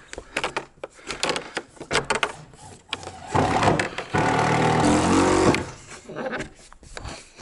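PEX tubing being pressed by hand into the aluminium-lined grooves of radiant subfloor panels, with scattered clicks and rustles. About three seconds in, a louder pitched mechanical hum runs for about two seconds, then stops.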